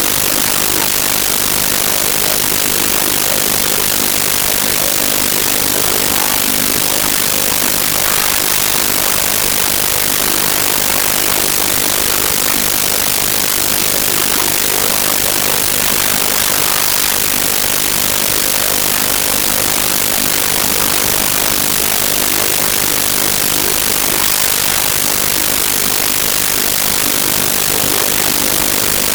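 Loud, steady hiss of static with no change or break, strongest in the high end: a faulty audio recording whose noise drowns out any other sound.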